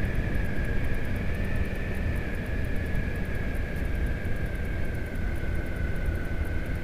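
Honda Hornet 900 motorcycle, an inline four, riding along at speed with its newly fitted silencers, under heavy wind rush on the microphone. A steady high whine sinks slowly in pitch.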